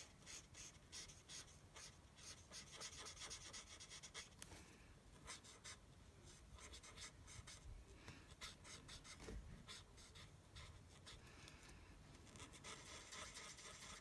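Faint, quick scratching strokes of a Stampin' Blends alcohol marker tip colouring and blending on cardstock.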